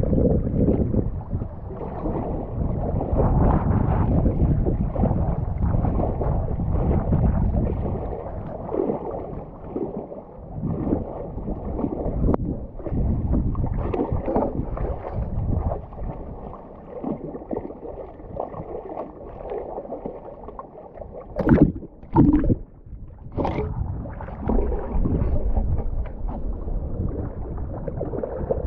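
Water sloshing and splashing around a person wading through waist-deep lake water in rubber waders, heard from a camera at the water line. The sound surges and eases unevenly, with three sharp, louder splashes or knocks a little past two-thirds of the way through.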